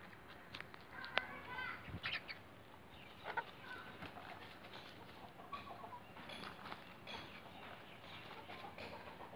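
Hens dust-bathing in loose dirt: quiet, scattered soft clucks from the flock, with brief scuffs of wings and feathers working through the dirt.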